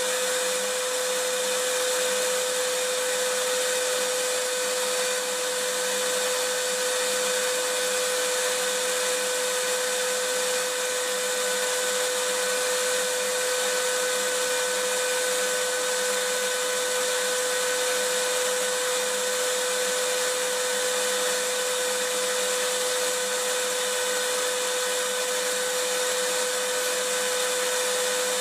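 Vacuum cleaner running continuously at a steady pitch: an even hiss with a steady hum.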